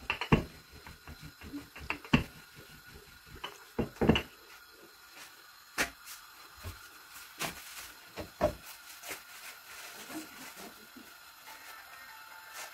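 Kitchen handling sounds of making roti: a wooden rolling pin knocking on a wooden board and the flatbread being laid and pressed in a dry frying pan. Scattered short knocks and clicks a second or two apart.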